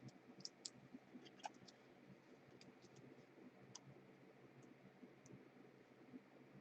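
Near silence with a scatter of faint, sharp clicks, most of them in the first few seconds: trading cards being handled and flicked through.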